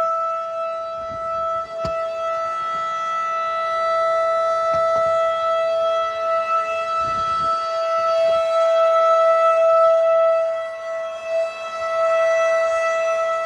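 Federal Signal 2001-SRN rotating outdoor warning siren sounding a steady, low-pitched tone on a monthly test. The tone holds one pitch throughout while the loudness swells and fades as the rotating head sweeps past, with a dip a little after ten seconds in.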